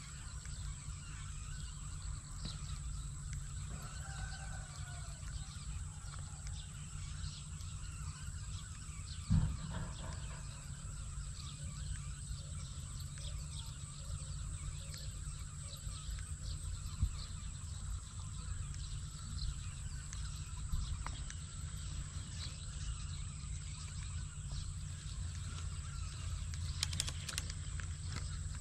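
Open rural outdoor ambience: a steady low rumble with faint bird chirps. A single short thump comes about nine seconds in.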